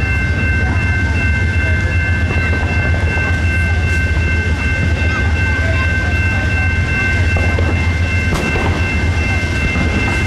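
Amtrak Empire Builder's Superliner passenger cars rumbling steadily past at speed, with a steady high-pitched ringing tone over them. A couple of distant firework booms break through, one about eight seconds in.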